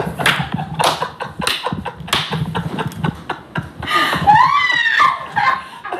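A person laughing hard: breathy, gasping bursts about every half second, breaking into a high, voiced laugh around four seconds in.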